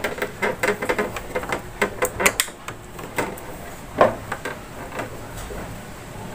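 Hands handling motorcycle wiring connectors and plastic body panels: a quick run of small plastic clicks and rattles, with one louder knock about four seconds in, then sparser clicks.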